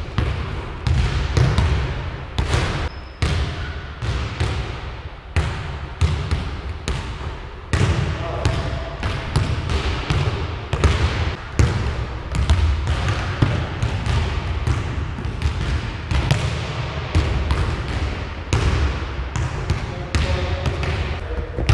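Basketballs being dribbled on a hardwood gym floor: a steady run of bounce thuds, often from more than one ball at once, echoing around a large hall.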